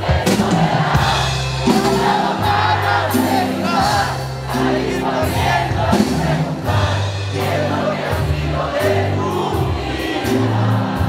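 Live band playing a song with singing over a stepping bass line, with crowd noise underneath.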